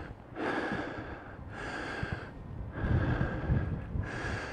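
A man breathing hard, about four heavy breaths a second or so apart, out of breath from the steep climb up the hill.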